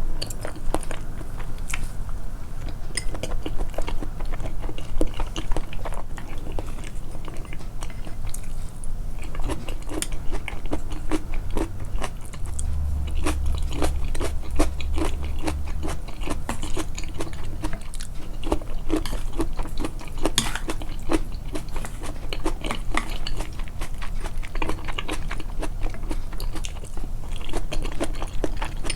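Close-up chewing and biting of a home-cooked meal, with irregular moist clicks and crunches, the chewing sounds boosted in editing.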